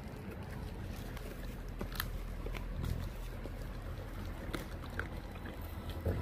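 A dog and a puppy licking and chewing at a whole raw fish: scattered soft wet clicks over a low steady rumble.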